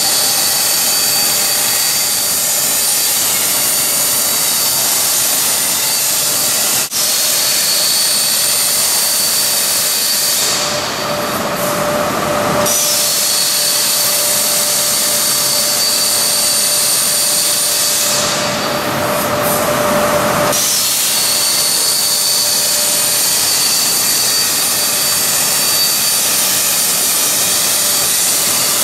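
Plasma torch of a Ficep Gemini CNC table cutting metal plate: a loud, steady hiss with a thin high whine. The hiss changes character twice, for about two seconds each, with a sharp click about seven seconds in.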